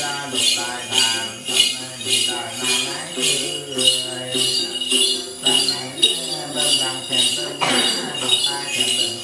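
A cluster of ritual jingle bells (xóc nhạc) shaken in a steady rhythm, about two to three jangles a second, as in a Tày then chant, with singing beneath.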